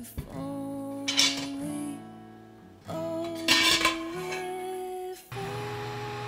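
Background music: a gentle acoustic guitar song with sustained notes. Over it come two brief metallic clatters, about a second in and again past three seconds, from a stainless steel pot's lid being handled.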